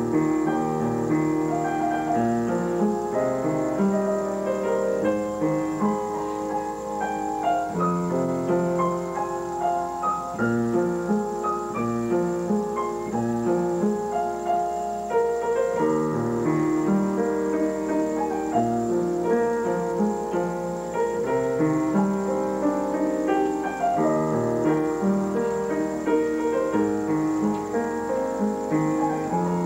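Upright piano played solo: a continuous piece of melody over chords, with no singing.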